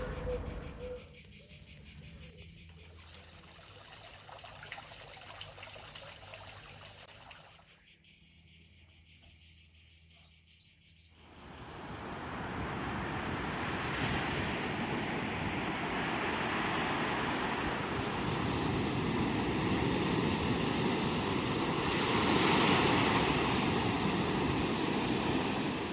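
Faint insects chirping over a quiet outdoor background. About eleven seconds in, a steady rushing of sea waves on the shore sets in and stays loud, peaking near the end.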